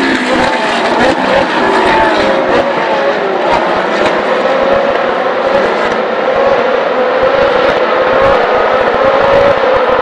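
Ferrari 458 Challenge race cars' V8 engines at high revs as a pack runs through the circuit. Several engine notes rise and fall over one another early on, then one note climbs slowly and steadily near the end.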